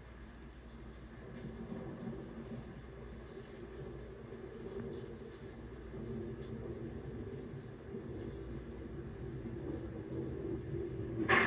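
Crickets chirping in an even, high rhythm of about three chirps a second, over the low hum of an old film soundtrack. A sudden loud sound breaks in right at the end.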